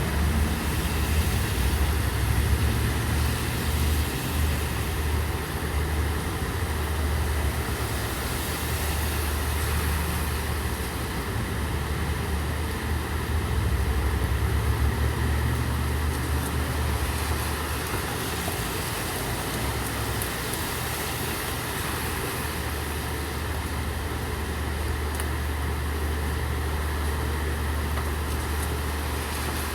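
Steady rain falling, with a vehicle engine running low underneath throughout.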